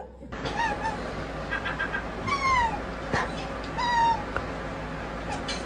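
A domestic cat meowing: three short calls that slide down in pitch, with a short run of quick chirps between the first two.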